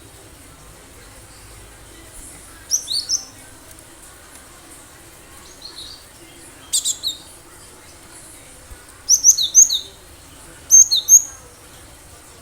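Cinereous tit calling: short phrases of a few sharp, high, down-slurred notes, about five phrases spaced a second or more apart.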